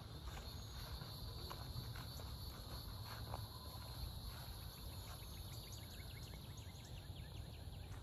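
Cicadas droning faintly and steadily in the trees, a high even hum, over a low rumble.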